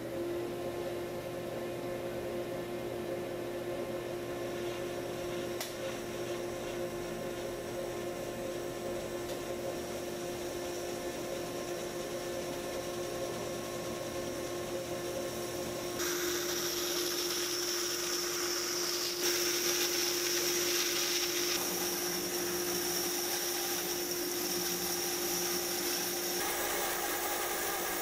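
Large cast-iron bandsaw spinning up to speed and then running with a steady hum. About halfway through, a harsher hiss joins as the blade cuts into a wood board, and it grows louder a few seconds later.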